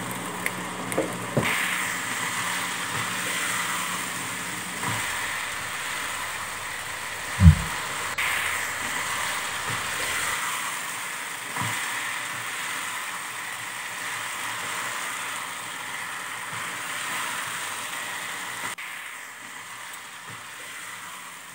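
Chicken pieces sizzling in a non-stick pan, a steady frying hiss, with a few soft knocks and one louder thump about seven seconds in. The sizzle grows quieter near the end.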